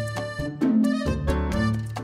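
Upbeat instrumental background music with a steady beat and bass line.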